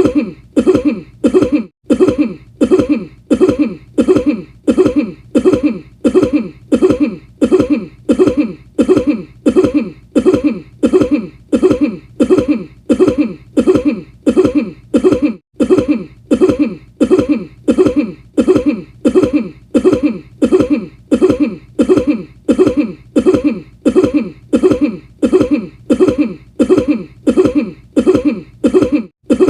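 A person coughing over and over in quick, evenly spaced coughs, about two a second. The repeated coughing has two brief breaks, about two and fifteen seconds in, where it restarts like a loop.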